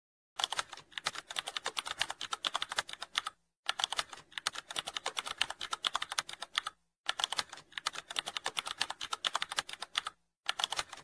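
Typing sound effect: rapid keyboard clicks in runs of about three seconds, separated by short pauses, starting about half a second in.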